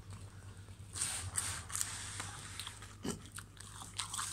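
Person biting into and chewing a baked Yorkshire pudding, with irregular crisp, crackly bites.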